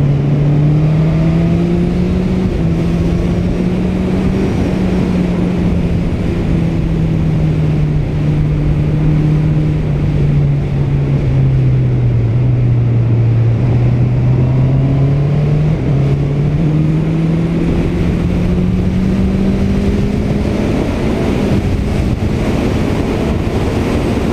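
Honda CBR650R's 649cc inline-four engine pulling along at road speed, its note climbing at first, sinking slowly through the middle and climbing again toward the end. Heavy wind noise on the microphone rushes underneath.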